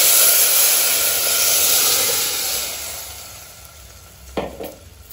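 Hot tempering oil in a steel pot hissing and sizzling loudly as a wet ground paste is poured in, the hiss dying away over about three seconds. A single light knock near the end.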